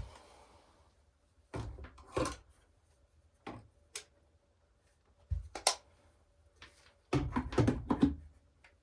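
Handling noise: a scatter of short clicks, knocks and rustles as small objects such as test wires and meter probes are picked up and set in place, with a denser burst of handling near the end. A faint steady hum sits underneath through the middle.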